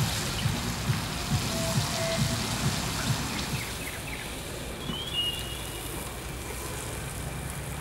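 Beef steaks sizzling and crackling on a hot stone slab over a wood fire, with frequent sharp pops, fading to a quieter hiss after about three and a half seconds. A bird chirps briefly about five seconds in.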